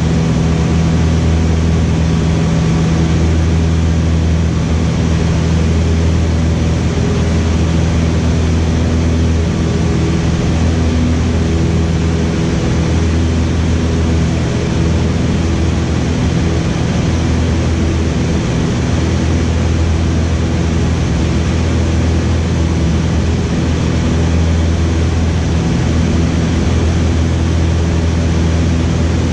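Cessna 152's four-cylinder Lycoming O-235 engine and propeller running steadily in flight, heard from inside the cabin as a loud, even drone.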